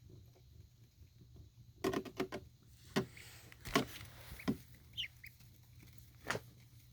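Scattered taps and rustling, with a couple of short, high duckling peeps about five seconds in, over a low steady hum.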